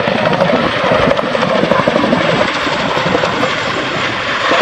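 RAF Boeing Chinook tandem-rotor helicopter in flight, loud, its two rotors giving a rapid, pulsing 'wokka' beat over the turbine noise.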